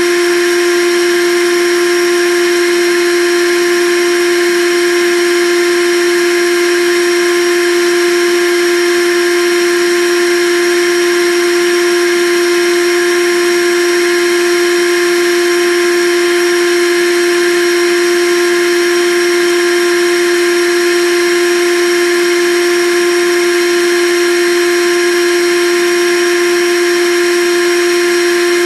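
Blendtec Designer 625 blender's motor base running with no jar fitted, a loud, steady whine with one strong pitch that does not change.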